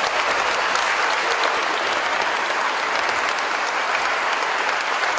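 An audience clapping steadily, a dense continuous round of applause.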